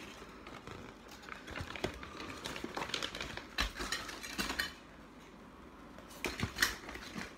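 Irregular knocks, scrapes and rustles of a cardboard action-figure box being handled, with a few sharper clicks and a quieter pause just after the middle.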